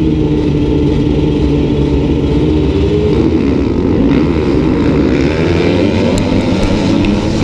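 Yamaha YZ250F four-stroke motocross bike and the surrounding field of bikes held at high revs behind the starting gate, then accelerating hard off the start about three seconds in, the engine pitch rising and falling.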